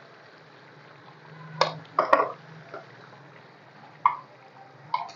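Potato-and-eggplant curry bubbling at a boil in a large aluminium pot, with a few short sharp clinks and knocks, the loudest about two seconds in.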